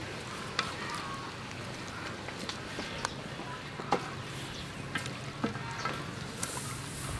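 Neem shoots and flowers cooking in a steaming wok over a wood fire: a steady hiss with a few scattered sharp clicks and crackles.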